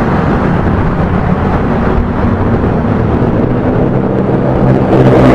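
Motorcycle engine running and wind rushing over an action camera's add-on microphone while riding, a steady loud rush with the engine's low hum growing a little stronger near the end.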